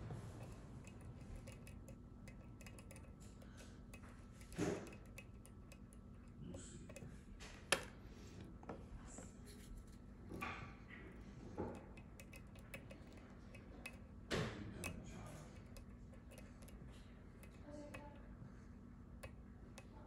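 Lock picking on a Russwin Emhart cylinder: faint metallic ticks and scrapes of a hook pick and tension wrench working in the keyway, with scattered clicks and a few louder knocks, one sharp click about halfway through.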